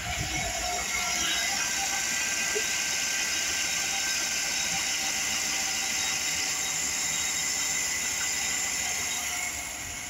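2008 Chevrolet Avalanche's 5.3-litre V8 idling in drive, heard close up in the open engine bay as a steady mechanical whir with a high hiss. It grows louder about a second in and eases off near the end.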